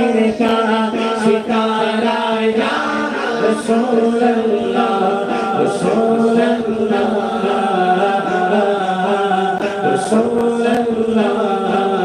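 A male voice sings an Urdu devotional kalam (naat) unaccompanied into a microphone, drawing the words out in long held, wavering notes.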